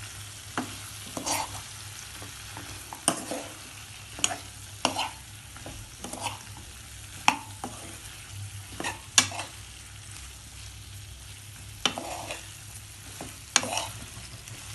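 Chili chicken being stirred in sauce: a utensil scrapes and knocks against the cookware in irregular strokes over a steady sizzling hiss.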